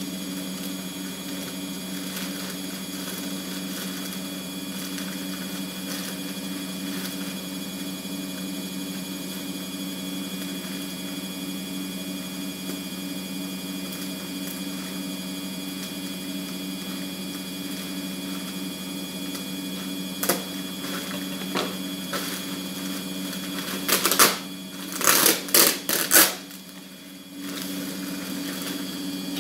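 A grey plastic mailer bag being cut with scissors and pulled open by hand. The film crinkles and rustles in loud sharp bursts near the end, over a steady low hum.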